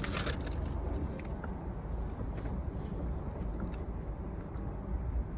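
Low steady rumble in a car's cabin, with a short crackle at the start and a few faint clicks.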